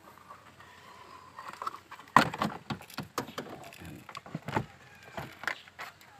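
Plastic interior trim being pulled off by hand, with an irregular run of sharp clicks and knocks from the trim panels and their clips. The run starts about two seconds in, and the first knock is the loudest.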